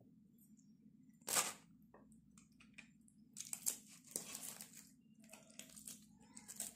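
Indian mackerel being cut and scraped against a curved blade: a few short rasping, crunching strokes, the loudest about a second and a half in and a quicker run of them around the middle.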